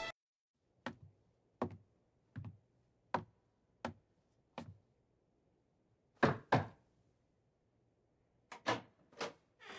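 Six slow, evenly paced footsteps on a wooden floor, then knuckles knocking on a wooden door: two loud knocks, and after a pause three more.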